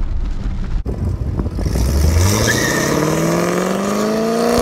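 Rain and car-cabin rumble for under a second, then a 1997 Corvette's V8 engine revving up, its pitch rising steadily for about three seconds before levelling off, with a hiss over it.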